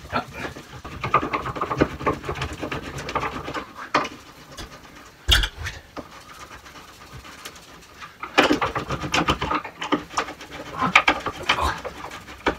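Hands working at a wooden shelf bracket on a wall: two stretches of scraping and clicking with one sharp knock about five seconds in.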